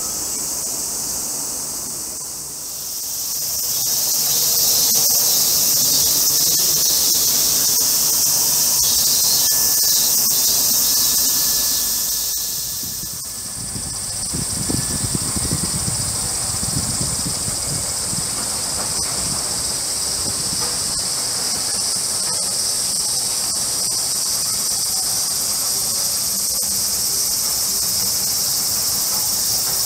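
Cicadas buzzing in a loud, steady, high chorus that swells about three seconds in and shifts in tone about halfway through.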